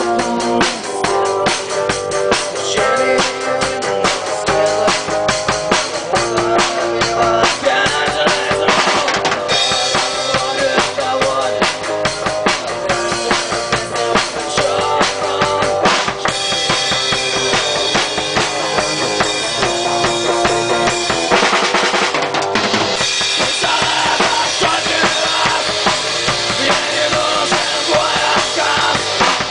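A band playing live in rehearsal, recorded on a compact camera's microphone: a drum kit with bass drum and snare drives a loud, continuous piece, with guitar and other pitched instruments over it.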